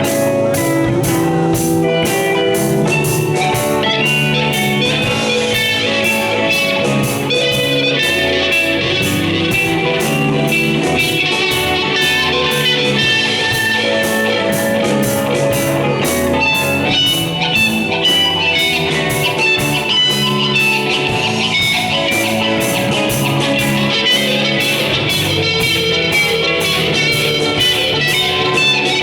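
Live psychedelic rock band playing an instrumental passage: guitar over a steady drum beat.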